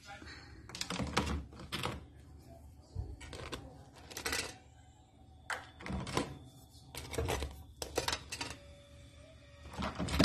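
Metal tongs clicking and clattering against a stainless steel steamer basket and hard crab shells as steamed crabs are lifted out: irregular taps and knocks, a dozen or so.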